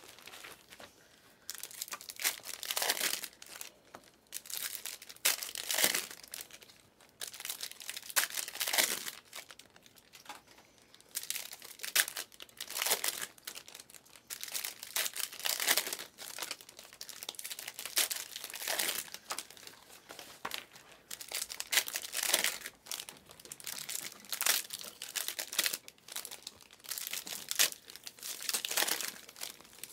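Foil trading-card pack wrappers crinkling and tearing as packs are ripped open and the cards handled, in short crackling bursts every second or two.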